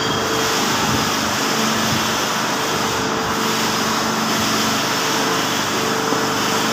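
Steady machinery running: an even rushing noise with a low hum that fades in and out.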